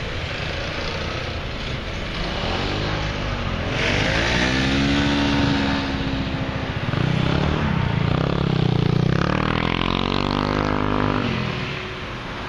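Motor scooters riding past one after another, each engine note rising as it comes close and dropping as it goes by.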